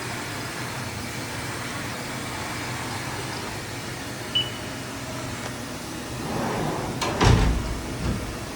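Haas VM-3 CNC vertical mill humming steadily while its Z-axis is jogged. A short beep comes about four and a half seconds in. From about six seconds a motorised whir of the axis moving builds, with a brief loud surge near seven seconds and a smaller one about a second later.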